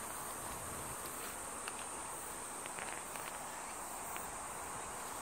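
Steady high-pitched drone of insects, with a few faint ticks.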